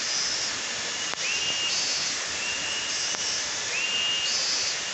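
Tropical forest insect chorus: a steady high hiss with a short rising whistled note repeating every second or so. Two sharp knocks come through, about a second and three seconds in.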